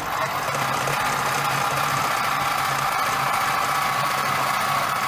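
Food processor motor running steadily, its blade churning flour and liquid as it begins mixing bread dough. A constant low hum sits under a louder whirring noise.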